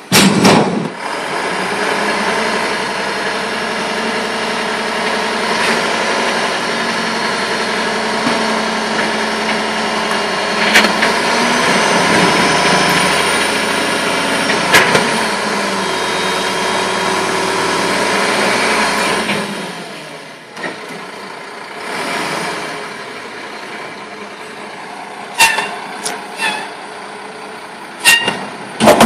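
Front-loading garbage truck: a heavy metal bang as the emptied steel dumpster is set down, then the truck's diesel engine running loud and steady for nearly twenty seconds while the truck works, dropping to a quieter idle. Several sharp metal clanks come near the end.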